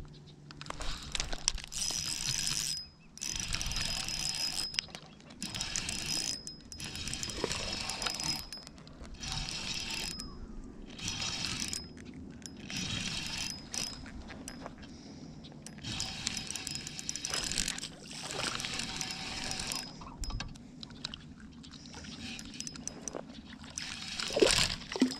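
Spinning reel being cranked in short bursts with brief pauses, its gears whirring with a thin high whine during each turn. There is a sharp knock near the end.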